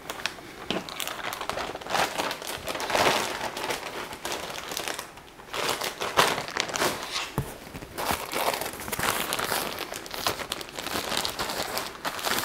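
Packaging crinkling and rustling as it is handled and pulled open, in irregular crackly bursts with a short lull about five seconds in.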